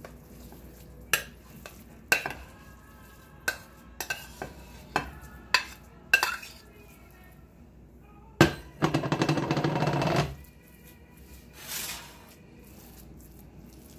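Metal spoon clinking and scraping against ceramic dishes as cornbread dressing is scooped from a bowl into a baking dish: a series of sharp clinks, then about a second and a half of fast scraping around two-thirds of the way in, and a softer scrape near the end.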